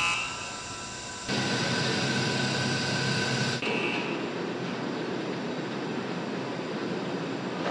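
Aircraft assembly-hall ambience: a steady industrial din of machinery noise. It jumps abruptly louder about a second in and shifts again a little past halfway. A brief high beeping tone comes at the start and again after about three and a half seconds.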